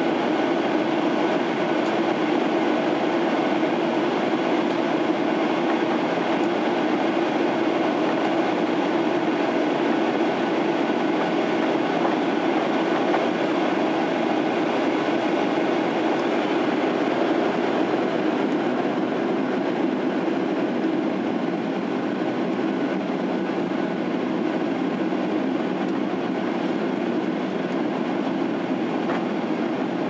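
Steady cabin noise of a Boeing 737-800 in flight, heard beside its CFM56-7B turbofan engine: a constant rush of air and engine hum, easing slightly about two-thirds of the way through.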